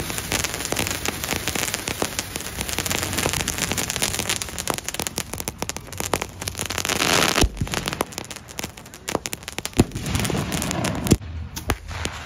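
Ground fountain firework spraying sparks with a dense crackle, swelling about six seconds in and cutting off a second later. A few scattered pops and cracks follow, with one sharp crack near the end.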